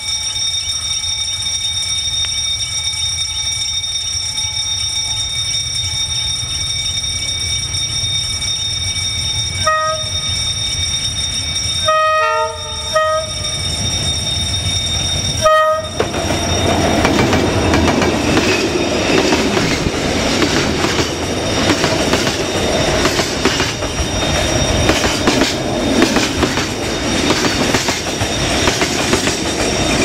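A level-crossing warning signal ringing steadily with high tones, then a Vietnam Railways D19E diesel-electric locomotive sounding several short horn blasts about a third of the way in. For the second half, the freight train's wagons roll past loudly, wheels clattering over the rail joints.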